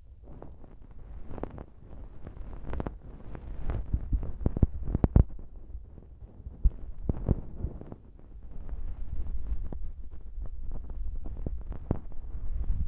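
A fluffy bonten, the down puff on the end of an ear pick, brushed and rubbed directly over a TASCAM DR-40 recorder's microphone. It gives a muffled, uneven low rustling with frequent soft thuds and a few sharper ticks.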